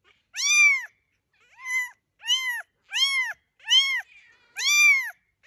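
Kitten meowing six times in quick succession, each a short, high call that rises and falls in pitch.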